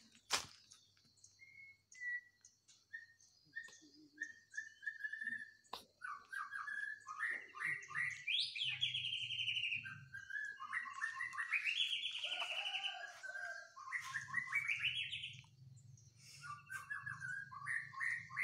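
Songbird singing: a run of short whistled notes that turns into fast trilled phrases rising and falling in pitch. A faint steady high-pitched tone lies beneath, and there is a single sharp click at the very start.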